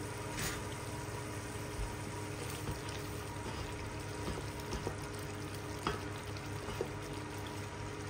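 Tomato and onion sauce simmering and bubbling in a pot, stirred with a wooden spoon, with a few light knocks of the spoon against the pot.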